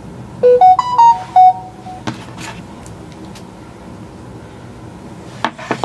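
Short electronic jingle of a few clean tones, rising then falling within about a second and a half: a video-call app's sound on joining the call. A few sharp clicks follow, about two seconds in and again near the end.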